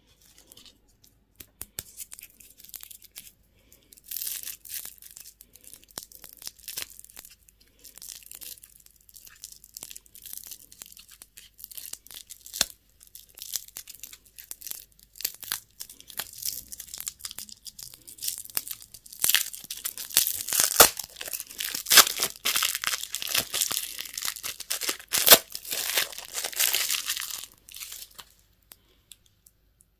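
Candy wrapper being crinkled and torn open, with many sharp crackles. It grows louder and busier over the last third and stops shortly before the end.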